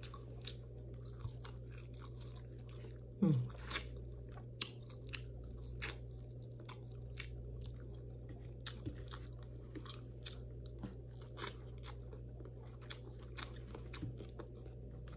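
Close-miked chewing and crunching of food: a steady run of small, crisp clicks from the mouth. About three seconds in there is a brief low hum that falls in pitch.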